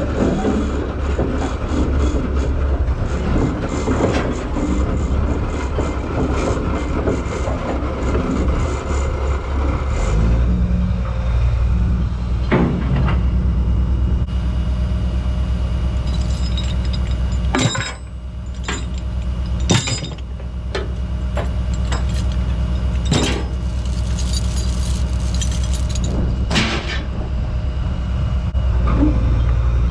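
CAT 315 hydraulic excavator's diesel engine running as the machine crawls onto a lowboy trailer's wooden deck, its note changing to a lower, steadier hum about ten seconds in. Several sharp metal clanks come in the second half.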